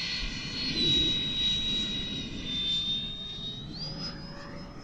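Freewing F-15 RC jet's nine-blade 90mm electric ducted fan whining in flight. Its pitch steps down twice and then climbs near the end as the throttle changes, with wind rumbling on the microphone.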